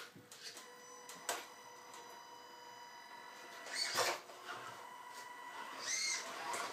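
Tamiya Bruiser RC truck's electric motor and gearbox whining steadily as it crawls, with sharp knocks from its tyres and chassis bumping over a hard obstacle about a second in, at about four seconds and near the end.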